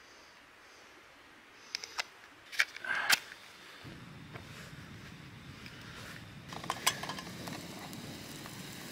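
A few small clicks and the scrape of a match being struck, then a canister camp stove's gas burner lights about four seconds in and runs with a steady hiss. Around three seconds later a frying pan clatters as it is set on the burner.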